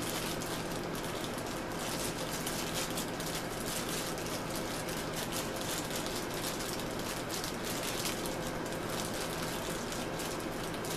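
Continuous crinkling of a foil blind-box bag being squeezed and handled while the small figure inside is felt through it.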